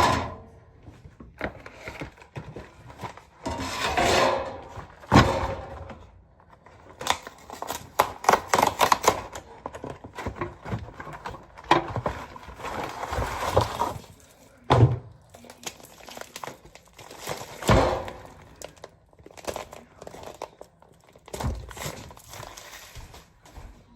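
Kitchen handling noises: irregular crinkling and rustling, like packaging being handled, with scattered thumps and clicks. The loudest knocks come about 5, 15 and 18 seconds in.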